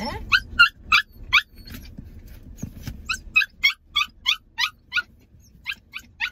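An 8-week-old Samoyed puppy yipping: short, high-pitched yaps about three a second, in three runs with brief pauses between them.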